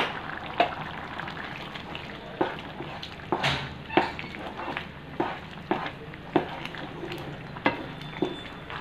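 Wooden spatula stirring a thick coconut curry in a pan, with irregular knocks and scrapes against the pan about once or twice a second over a steady low hiss of the cooking pan.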